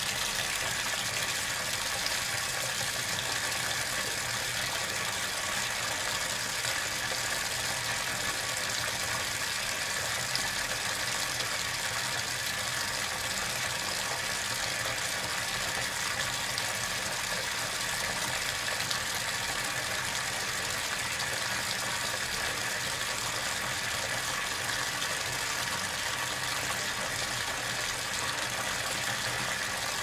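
Bathtub faucet running steadily, a continuous even rush of water pouring into the tub.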